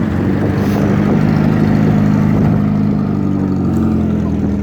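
Heavy vehicle engine running as it passes close by, growing louder to a peak about two seconds in, then easing off.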